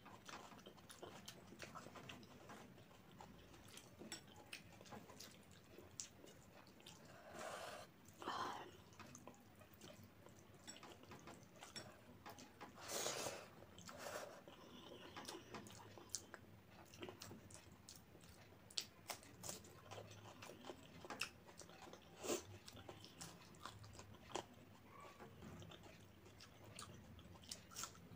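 Close-up chewing of hand-eaten rice and curry: soft wet mouth clicks and smacks. A few louder bursts come about 7 to 8 seconds in and again about 13 seconds in.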